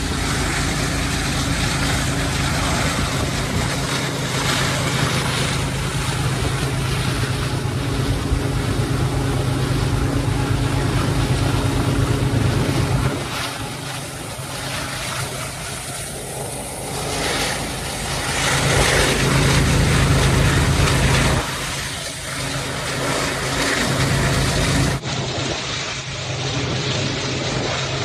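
Diesel-electric freight locomotive engines running hard, a steady low drone with wind rushing over the roof, as the units pull a long loaded train uphill. The sound changes abruptly about halfway through and twice more near the end.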